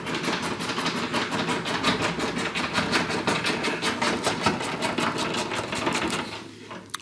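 Hand socket ratchet clicking in a fast, even run, about ten clicks a second, as a bolt is spun out of the car's front body panel; the clicking stops about six seconds in.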